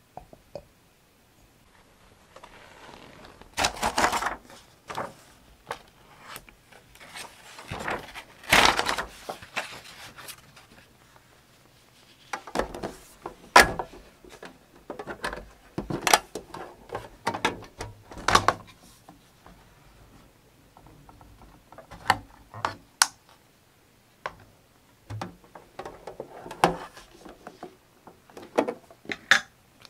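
Close-miked handling of paper and journaling supplies on a desk: irregular paper rustling with small taps and clicks as items are picked up and set down. Two louder rustling bursts come about four and nine seconds in.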